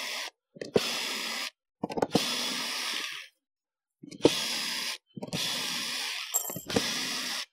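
Cordless drill backing screws out of a hardboard crate lid: the motor runs in short spurts of about a second each, about five times, each starting with a click as the bit bites.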